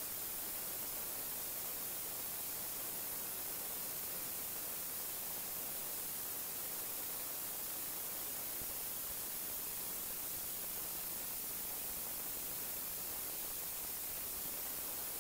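Steady, even hiss of recording noise with a faint low hum, unchanging throughout.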